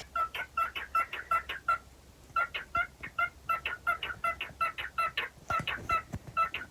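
Cockatiel chirping a quick run of short, repeated calls, about four a second, with a brief pause about two seconds in.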